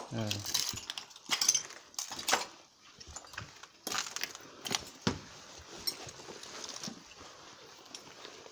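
Irregular clinks and knocks of loose debris, a string of sharp hits at uneven intervals, loudest in the first two and a half seconds.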